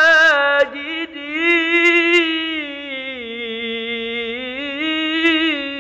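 A man reciting the Quran in melodic tilawah style. He sings a short phrase, breaks off briefly about a second in, then draws out one long melismatic note that wavers and slides up and down in pitch.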